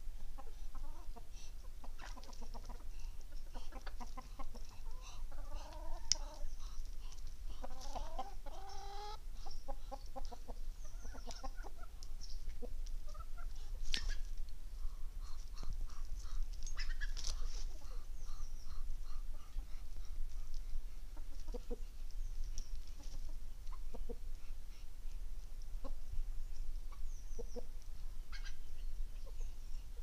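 Domestic chickens clucking and calling, with a run of longer calls about five to nine seconds in and scattered short sharp clicks.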